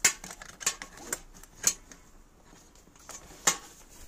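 Plastic snap-fit casing being pried apart with a sharp tool: a handful of short, sharp plastic clicks and scrapes, the clearest about a second and a half in and again near three and a half seconds.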